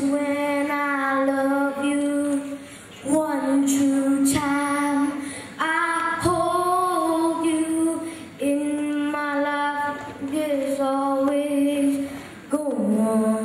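A boy singing solo into a handheld microphone, holding long steady notes in phrases broken by short pauses for breath.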